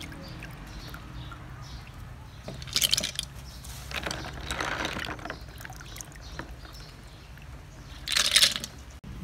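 Water sloshing and splashing as sea snails are rubbed and stirred by hand in a plastic basin of water and lifted out into a plastic colander. It comes in three splashy bursts, about three seconds in, around five seconds in, and the loudest near the end.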